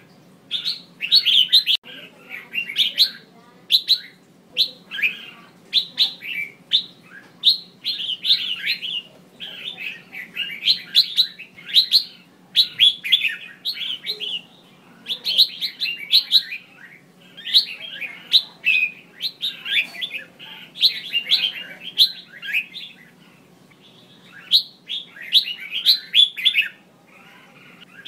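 Female red-whiskered bulbul calling in quick clusters of bright chirps, about one cluster a second, with a short lull near the end. These are the female calls used to stir male bulbuls into singing.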